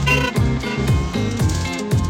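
Background music with a steady beat and a bass line, about two beats a second.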